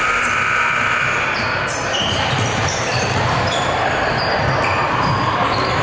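A basketball being dribbled and bouncing on a gym court during live play, with many short high squeaks scattered through it, typical of sneakers on a hardwood floor.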